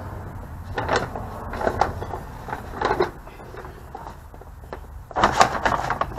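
Irregular knocks, clicks and rustles of hands handling tools and parts, with a denser flurry about five seconds in.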